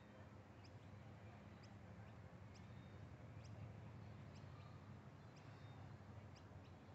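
Faint, high, short bird chirps repeated about once a second, over a low steady hum.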